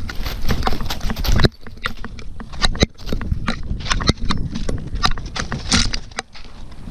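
A Border Collie running through forest, heard from a camera on its chest: quick, uneven paw footfalls on the forest floor, with the camera knocking and rubbing against the dog. There is a heavy rumble for about the first second and a half, then separate sharper knocks and rustles.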